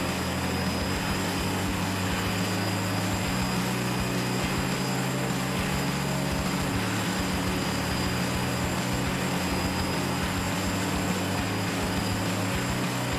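Wood chipper's engine running steadily with a constant low drone, without revving up or down.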